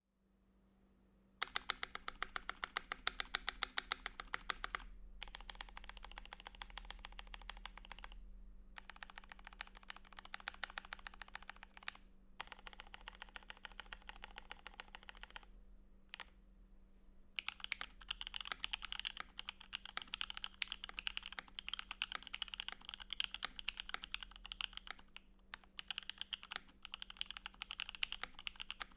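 Typing on a custom KBD67 mechanical keyboard in a stacked acrylic case, with lubed and filmed Jwick Yellow linear switches, foam-dampened, under PBT keycaps. Fast runs of keystrokes start about a second and a half in and come in bursts with short pauses between them, over a faint steady hum.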